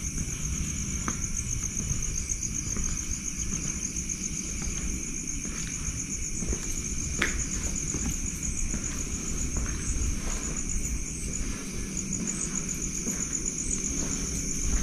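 Night insects, crickets, trilling steadily in a continuous high, fast-pulsing chorus, with a lower steady insect tone beneath it. Underneath runs a low rumble of footsteps and handheld camera movement.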